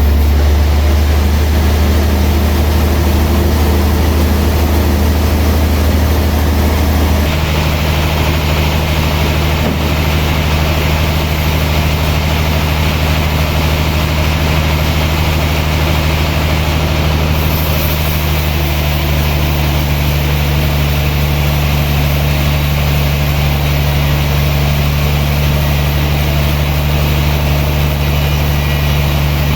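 Sawmill machinery running steadily with a loud, low drone. Its note shifts about seven seconds in.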